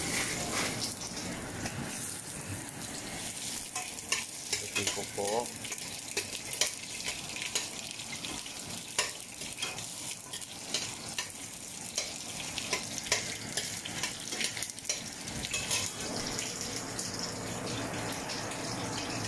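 Sliced red onion sizzling in hot oil in a stainless steel pot, a steady hiss dotted with small crackling pops.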